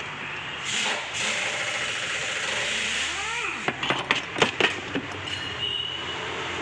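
Metal parts of a car starter motor being handled during reassembly: a scrape about a second in, a short squeak, then a quick run of sharp metallic knocks and clinks around the middle, over a steady background hiss.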